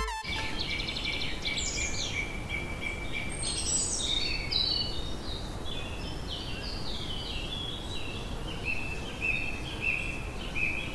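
Small birds chirping in a steady run of short calls over even, low background noise: an outdoor village ambience.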